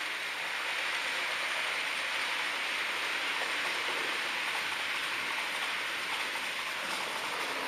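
HO-scale model train rolling along the track: a steady hiss of small metal wheels on the rails.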